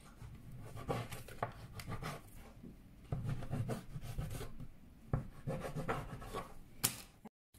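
A plastic dough scraper pressing down through soft bread dough and scraping on the countertop as the dough is cut into pieces. It makes a series of short scrapes and knocks.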